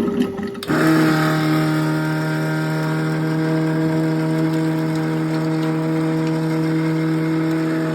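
Electric oil exchange pump motor switching on about a second in and running with a steady hum.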